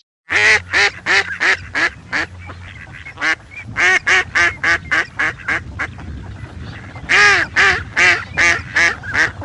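A bird calling over and over in rapid, loud calls, about three a second, the loudest run near the end, over a steady low rumble.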